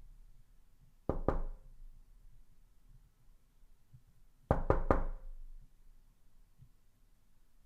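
Knocking: two knocks about a second in, then after a pause three knocks in quick succession.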